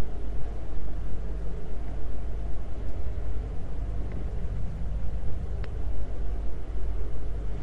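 Steady low rumble of background noise, with a faint click about five and a half seconds in.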